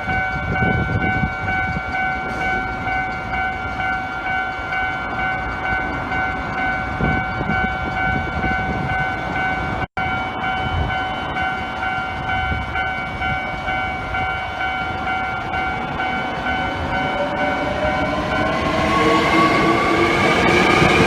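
Japanese railway level-crossing alarm ringing steadily while a train rumbles over the rails. Near the end, an electric train's motors give a whine that rises in pitch.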